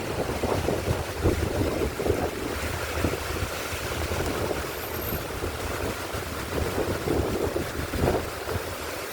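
Heavy rain falling steadily, with wind buffeting the microphone in low rumbling gusts.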